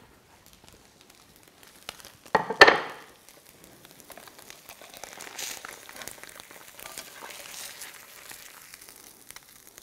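Hot brown butter crackling faintly in a wrought-iron pan as a slab of tofu is lifted out with a wooden spatula and a metal spoon, with one brief, louder clatter of the utensils about two and a half seconds in.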